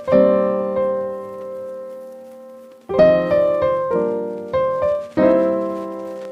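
Background music on piano or electric keyboard: a chord rings and fades for nearly three seconds, then a run of struck notes starts about three seconds in.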